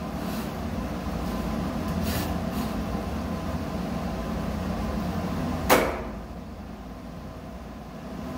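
Steady low machinery hum with light handling noises as a plastic electrical box is fitted onto a pipe, and a single sharp click about six seconds in; after the click the background hiss is quieter.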